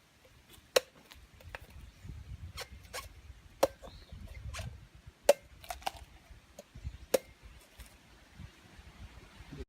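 Machete chopping into a coconut: a dozen or so sharp, irregular strikes, the hardest about halfway through, over a low rumble.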